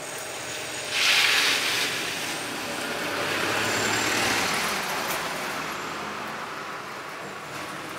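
A road vehicle passing by, its tyre and engine noise swelling and then fading away. A short loud hiss about a second in is the loudest sound.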